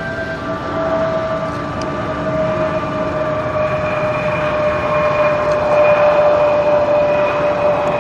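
Jet aircraft engine noise building up, with a steady whine that slowly falls in pitch over a rushing roar as the plane passes.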